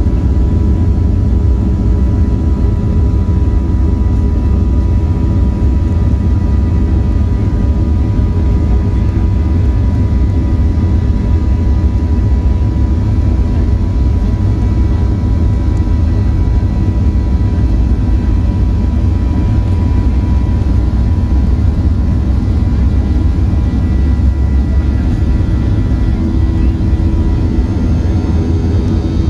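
CFM56 turbofan engines of a Boeing 737-800 heard from inside the cabin: a steady low rumble with faint, steady high tones above it.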